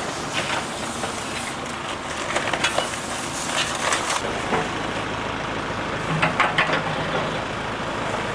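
A backhoe loader's engine running steadily while its bucket crushes through a pile of flood debris, with several bursts of cracking and crunching.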